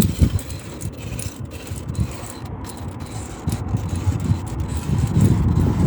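Low, uneven rumble of a vehicle on the move, rising again near the end.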